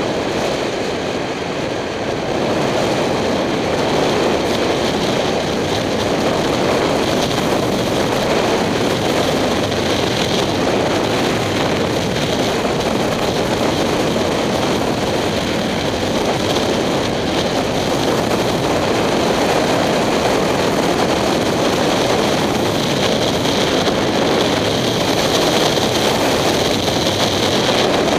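Steady wind rush over a helmet-mounted camera's microphone while riding at road speed, with the 2007 Kawasaki Ninja 250's parallel-twin engine running underneath. The noise rises slightly about two seconds in and then holds steady.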